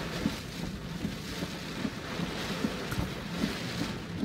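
Strong storm wind rushing steadily, with irregular gusts thumping on the microphone.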